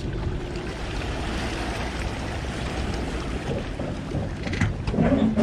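Wind buffeting the microphone over a steady low engine rumble as a pickup backs a boat trailer down a launch ramp into the water. A short louder sound comes near the end.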